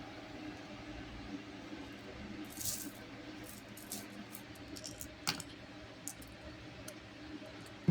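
Light scattered clicks and taps over a low, steady room background, with a brief hiss about two and a half seconds in and one sharper click about five seconds in.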